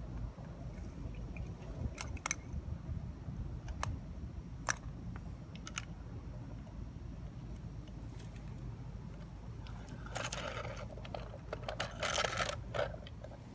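Small sharp clicks from a diecast garbage truck model (a First Gear Heil Half/Pack with a Curotto Can arm) and its toy cart being handled, a handful in the first six seconds. About ten seconds in comes a longer stretch of rattling and scraping as the model is moved over gritty dirt, over a steady low rumble.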